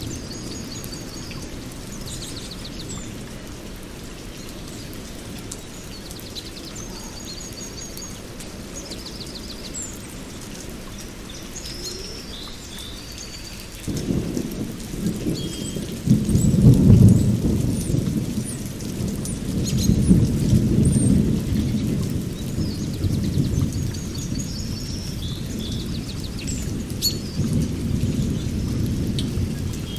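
Rain falling steadily with rolling thunder: a deep rumble comes in sharply about halfway through and swells twice. Short bird chirps sound over it throughout.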